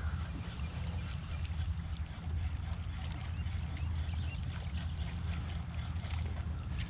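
Water lapping against a plastic kayak hull over a steady low rumble, with faint scattered ticks.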